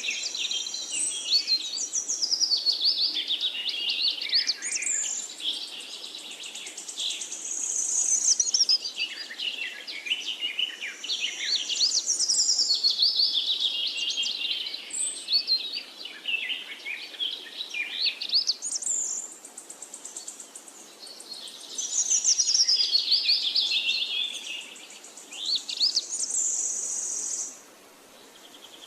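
Songbirds singing in a chorus of rapid, sweeping chirps and trills, rising and falling in quick phrases. A steady high-pitched hiss or buzz sounds under the birds at the start and again near the end.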